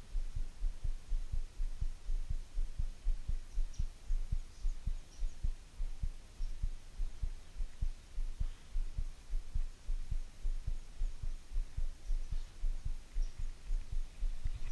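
An even rhythm of dull low thumps, about two to three a second.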